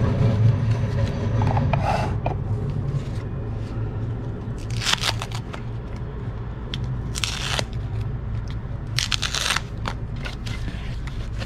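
Thin white foam wrapping crinkling and tearing as it is peeled off a fishing rod's handle, with three louder rustling bursts about five, seven and nine seconds in, and scattered small crackles between them.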